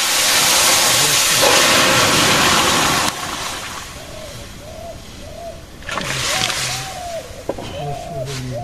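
Watery mixture poured from a steel bowl into a hot karahi holding spices: a loud, sudden sizzle as it hits the hot metal, cutting off about three seconds in. A weaker sizzle and pour follows about six seconds in as the rest of the bowl goes in.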